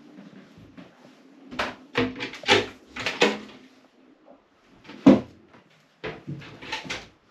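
A wooden cupboard door in a yacht's head compartment being opened and shut: a run of clicks and knocks from its catch and hinges, with one louder knock about five seconds in.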